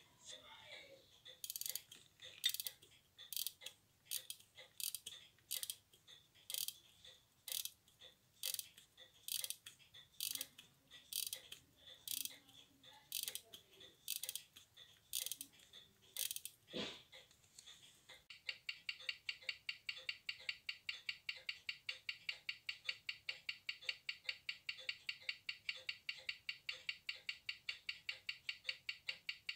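Tissot pocket-watch movement being wound by hand through its crown and winding stem, the ratchet clicking about twice a second with each turn. After a cut near 18 s, the wound movement's escapement ticks evenly about five times a second on a timegrapher, running well with a rate of −5 s/d and 323° amplitude.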